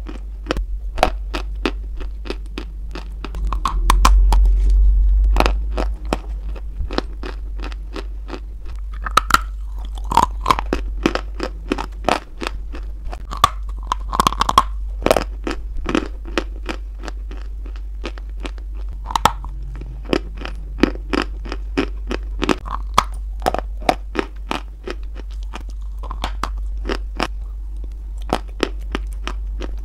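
Close-miked biting and chewing of a white chalky lump: a dense, irregular run of sharp crunches and clicks over a constant low hum, with a louder low rumble about four seconds in.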